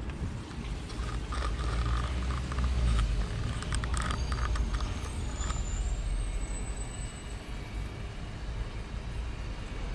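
Wind buffeting a handheld camera's microphone, a low rumble, with clicks and rustles from the camera being handled in the first half.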